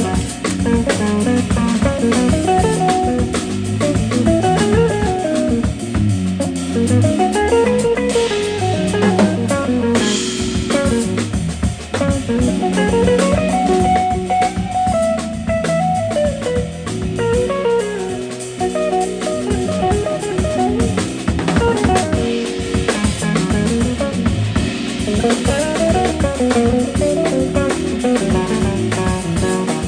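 Live jazz band playing: electric guitar carrying the melodic lines over electric keyboard and a drum kit.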